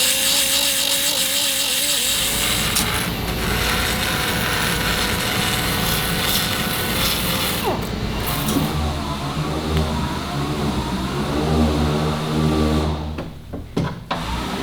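A handheld power tool running and cutting, its pitch falling as it winds down about eight seconds in, followed by a lower steady hum.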